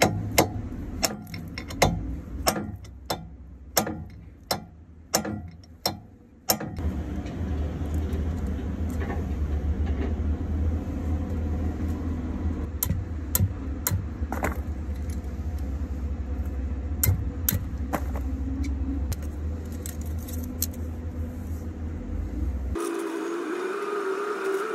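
A hammer striking the steel piston assembly of a hydraulic bucket cylinder about ten times in sharp, uneven taps during the first six seconds. After that comes a steady low rumble.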